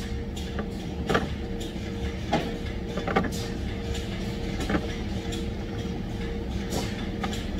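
Steady factory machine hum with a constant tone, broken by sharp irregular clacks every second or two as rubber hoses and their metal fittings are handled against a workbench tool.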